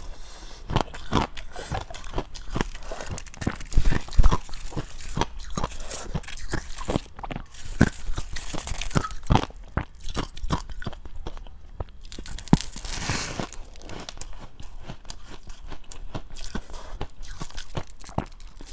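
Dry, powdery freezer-frost ice being bitten and chewed close to the microphone: rapid, irregular sharp crunches, several a second.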